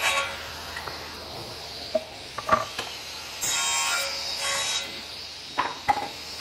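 Power saw running steadily, with one short cut into an oak board about three and a half seconds in and a few sharp knocks of boards being handled.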